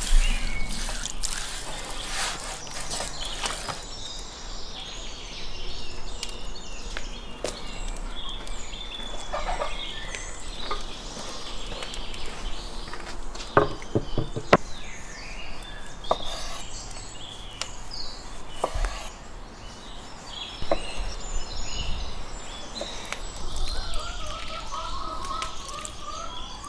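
Birds chirping over a steady background hiss, with scattered clicks and knocks from handling food on a wooden table and steel tray, including a quick run of about four knocks a little past halfway.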